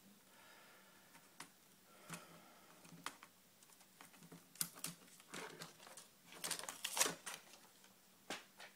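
Scattered small clicks and crackles of adhesive tape being peeled and plastic laptop-screen parts being handled, with a denser run of louder crackling about five to seven seconds in.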